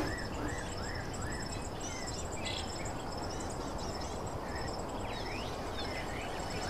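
Night ambience: crickets trilling steadily over a low hiss, with a bird giving short rising chirps in a quick run early on and again later.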